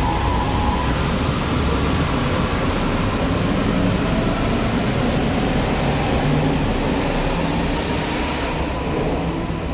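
S-Bahn electric multiple unit pulling out of an underground station: a steady, loud rumble of wheels on rail, with a faint motor whine rising as it gathers speed. The sound eases slightly near the end as the last car passes.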